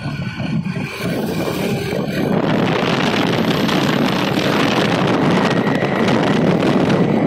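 Wind rushing over the microphone of a phone carried on a moving motorcycle, mixed with engine and road noise; the rush gets louder about two seconds in.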